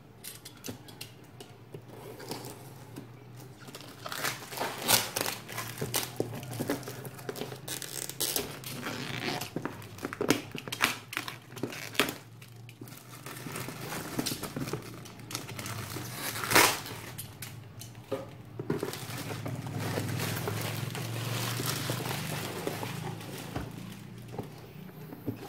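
Clear plastic shrink film crinkling and tearing as it is pulled off a cardboard box, in irregular crackles with one sharp, loud crackle about two-thirds of the way through.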